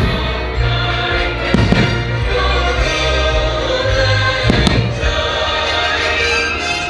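Fireworks show soundtrack music with a choir singing, played loud over the park speakers, while firework shells burst overhead about three times.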